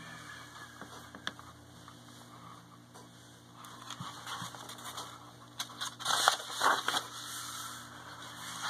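Pages of a picture book being handled and turned: soft paper rustling with a few light taps, louder rustling about six to seven seconds in.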